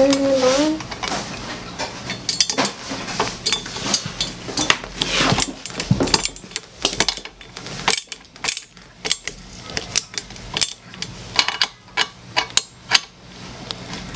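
Phillips screwdriver turning a screw into the steel tube frame of a kid's ride-on kart: a run of irregular metal clicks and ticks, closer together in the second half.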